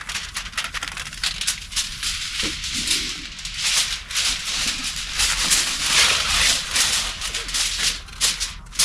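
Rustling and rattling of gear being handled, with many small clicks.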